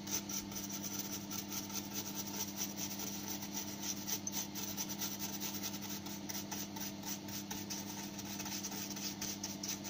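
Paintbrush bristles sweeping and scratching milling dust off a freshly engraved copper-clad circuit board, in many short strokes over a steady low hum.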